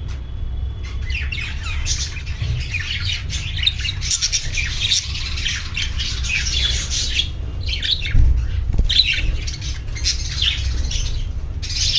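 Budgerigars chattering and squawking in a dense, continuous run of short chirps, over a steady low rumble.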